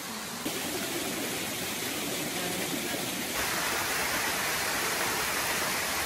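Steady rush of a small waterfall cascading over rocks, becoming louder and fuller about three and a half seconds in.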